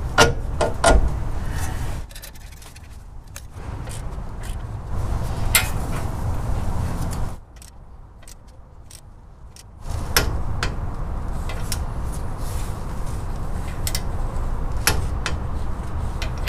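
Mechanic's wrench and metal steering parts on a truck's front suspension: scattered sharp metal clicks and knocks as the outer tie rod end's castle nut is run on and tightened, over steady rustling handling noise, with two short quieter pauses.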